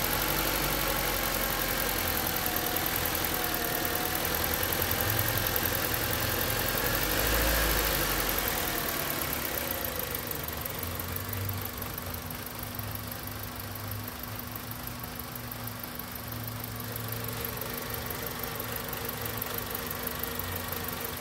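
2001 Honda Civic engine idling, heard up close in the engine bay, with a steady hum and some wavering higher tones. It is louder for the first eight seconds or so, then softer. The owner presents this engine and intake sound as a problem.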